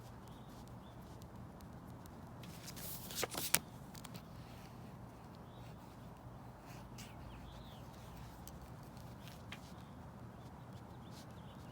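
Quiet outdoor ambience: a few faint bird chirps over a low steady hum, with scattered light clicks and a short scratchy rustle ending in a sharp click about three seconds in.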